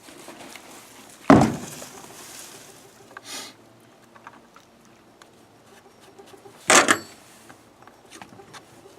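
Knocks and clatter of a fuel can and a chainsaw being handled during refuelling: a loud knock about a second in and another near the end, with lighter handling noises and a brief swish between.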